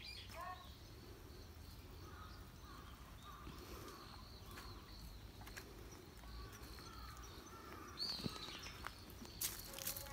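Faint outdoor ambience with a few distant bird calls, and some brief clicks near the end.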